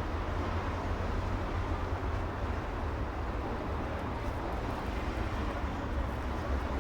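City street traffic ambience: a steady, even rumble of vehicle engines and tyres, heaviest in the low end, with no single event standing out.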